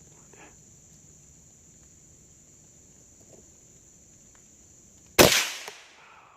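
A single .22 rifle shot about five seconds in: one sharp crack that dies away over well under a second. Steady high drone of insects underneath.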